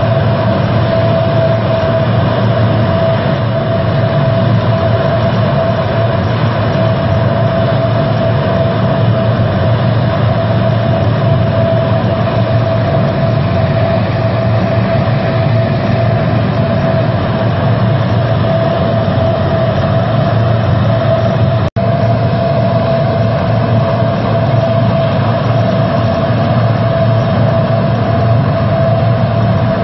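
Lockheed C-130 Hercules four-engine turboprop running on the ground: a steady, loud drone with a constant high whine over a low rumble. The sound cuts out for an instant about two-thirds of the way through.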